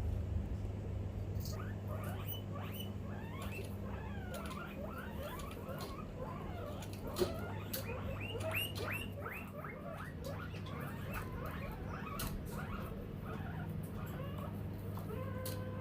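Guinea pig chirping: rapid runs of short, bird-like gliding tweets starting about two seconds in, densest in the first half and thinning out later, over a steady low hum, with a single sharp click about seven seconds in. The owner takes the chirping as a sign the guinea pig is scared.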